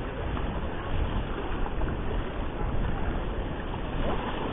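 Steady wind rumbling on the microphone over waves washing against a rocky shore.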